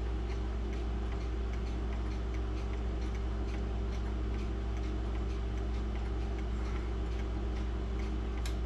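Mechanical pendulum clocks ticking, an even, regular ticking over a constant low hum, with a sharper click near the end.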